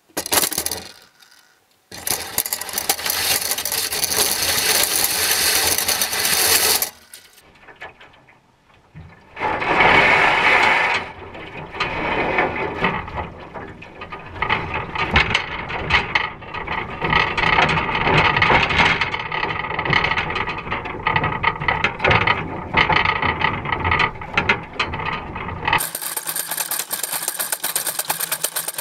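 Metallic rattling and clunking of a wire crab pot and gear in a small boat, many quick knocks and clicks. About three seconds before the end a small engine starts and runs steadily.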